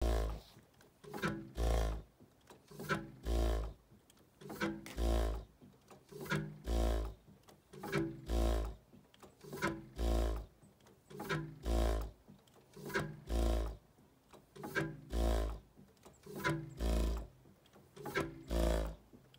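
Chaléassière two-stroke hot-bulb (semi-diesel) locomobile engine running 'en balance' at 0 rpm: the flywheels rock back and forth without turning over. It fires with a deep, regular thump about every 1.7 s, and each thump comes just after a lighter sound.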